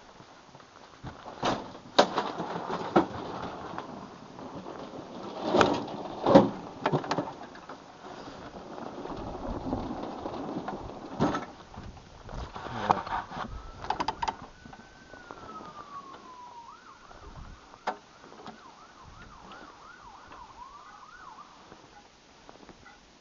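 Several sharp knocks and rustling handling noises, then a siren: one slow rising-and-falling wail, followed by a quick warbling yelp for several seconds.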